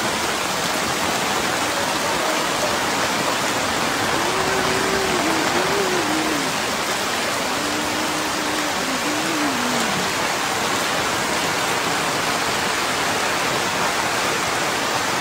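Heavy rain pouring steadily, a dense even hiss. A faint distant voice calls out a couple of times in the middle.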